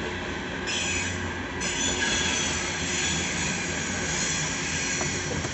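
Loaded coal train's hopper cars rolling past with a steady low rumble, their wheels squealing on the rail in high-pitched tones that set in just under a second in, break off briefly, then carry on.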